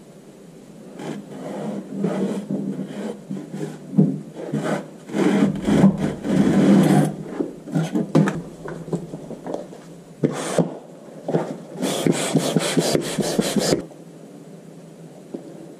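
Hands scraping and rubbing at casting sand in a plywood moulding flask, the flask handled and turned over, with scattered light knocks. The scraping is irregular, with a quick run of strokes near the end before it stops.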